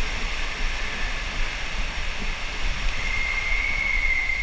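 Rushing water and wind noise as an inflatable raft speeds down an enclosed water slide tube and out into an open chute. A steady high tone joins about three seconds in.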